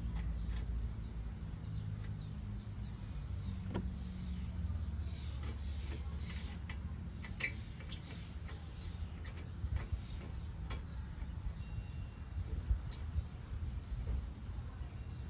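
Scattered clicks and light metal taps of hand tools working the brake caliper bracket bolts, over a low steady hum. Two short, sharp, high chirps come about twelve seconds in.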